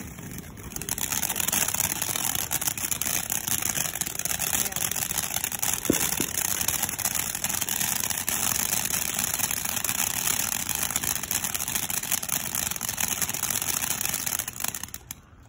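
Ground fountain firework spraying sparks with a loud steady hiss and dense crackling. The hiss drops away sharply near the end.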